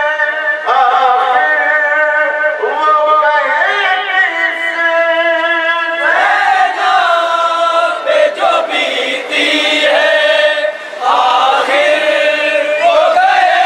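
Male voices chanting a noha, an Urdu lament for the Prophet's family, unaccompanied, in long held notes that bend up and down in pitch.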